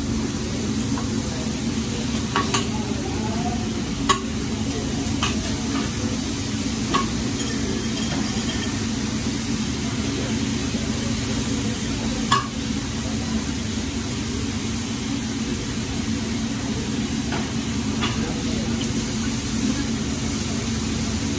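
Chicken and shrimp sizzling on a hot hibachi flat-top griddle as the chef turns and stirs them with metal spatulas, with a handful of sharp clicks of spatula on steel scattered through it, two of them louder. A steady low hum runs underneath.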